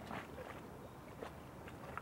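Faint harbourside ambience: a low steady rumble with a few scattered light clicks and knocks.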